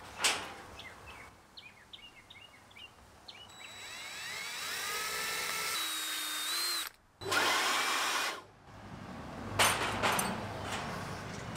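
Cordless drill driving a bolt into a trailer's steel frame, running in two bursts that each spin up in a rising whine. About ten seconds in, a few sharp clatters of tools being set down on the metal deck.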